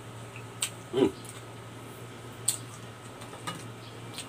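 Close-up eating sounds: a man chewing and smacking his lips, making about five short, sharp wet clicks, the loudest about a second in, over a steady low hum.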